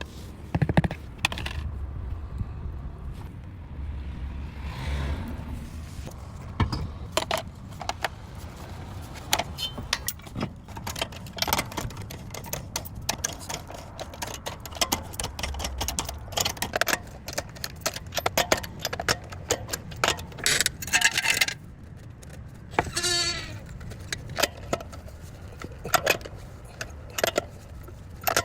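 Tire repair tools being handled: irregular metallic clicks and clinks throughout, over a low steady rumble. A short squeak is heard about three quarters of the way through.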